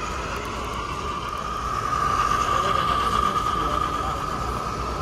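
Model train running on a layout with a steady high whine, over a background murmur of people talking.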